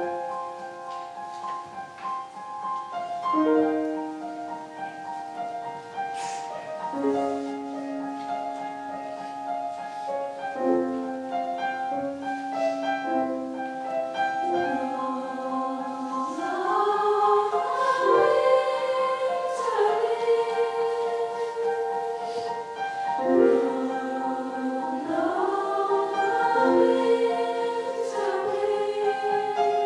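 Concert choir singing a slow piece in sustained chords, the voice parts holding notes and moving together from chord to chord. It begins abruptly.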